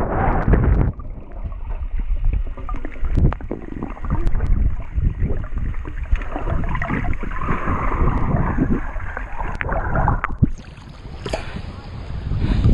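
Water rushing and sloshing over a GoPro camera's microphone as it is moved underwater in the sea, with many short knocks. About ten and a half seconds in, the sound changes as the camera comes up to the surface among small waves.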